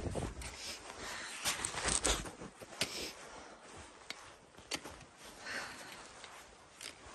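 Slow, uneven footsteps crunching on a high mountain path, with hard breathing in the thin air at about 5,400 metres.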